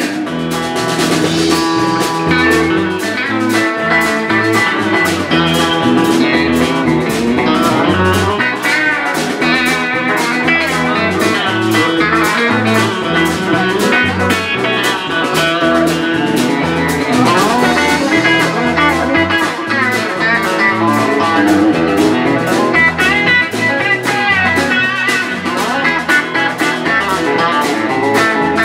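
Live blues-rock band playing an instrumental passage: electric guitars over electric bass and a drum kit keeping a steady beat.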